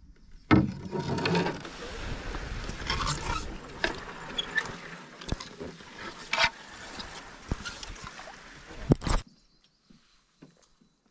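A canoe pushing through a narrow marsh creek, with grass and sedge from the banks rustling and scraping along the hull and a few sharp knocks. The sound cuts off suddenly about nine seconds in.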